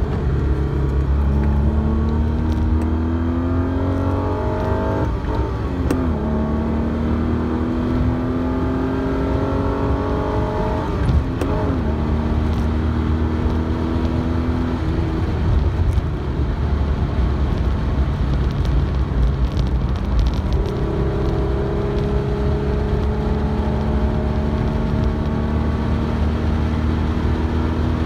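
Alfa Romeo GTV6's Busso V6 engine heard from inside the car on track, accelerating through the gears: the pitch climbs, drops back at upshifts about five and eleven seconds in, then holds steadier and rises slowly again in the second half.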